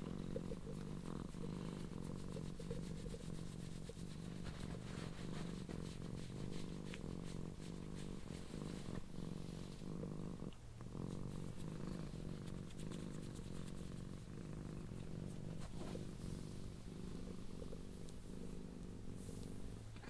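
A blue and cream tortoiseshell cat purring loudly and steadily while being stroked, a sign of contentment, with one brief break a little past halfway.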